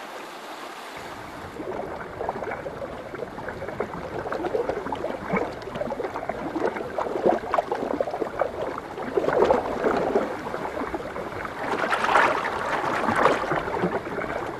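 Shallow river water rushing and splashing as spawning sockeye salmon thrash and jostle one another, coming in irregular surges. It grows louder after the first second or two, with the biggest splashes about nine and twelve seconds in.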